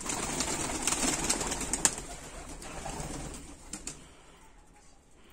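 A group of domestic pigeons taking off together, a flurry of flapping and clapping wings that dies away over about four seconds.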